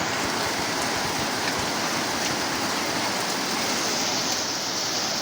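Steady rainfall: an even hiss of rain coming down.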